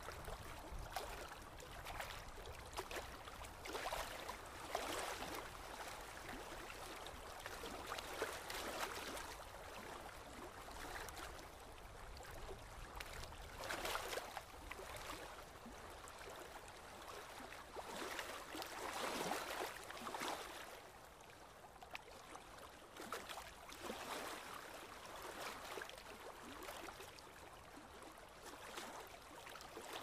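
A brook babbling: a steady wash of running water with irregular gurgles and splashes that swell and fade every few seconds.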